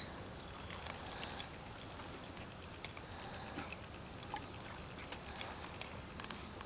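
Quiet river-side ambience at night: a faint steady low rumble with scattered small clicks and taps.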